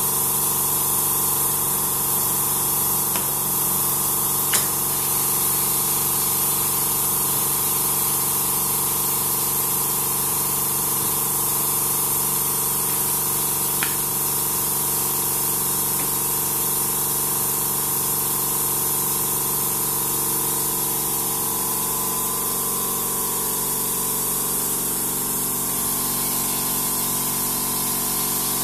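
TU380 salt spray tester running: a steady hiss of compressed air over a steady machine hum. Two sharp clicks of its rocker switches being pressed, about four and a half seconds in and again about fourteen seconds in.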